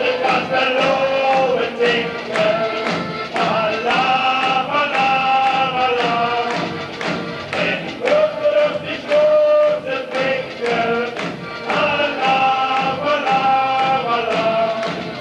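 Music with singing: a carnival song, sung melody with long held notes over a steady beat.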